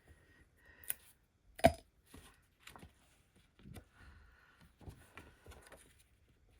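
A few sharp taps and knocks of paper, card and craft tools being handled on a tabletop. The loudest knock comes under two seconds in, followed by several lighter ones.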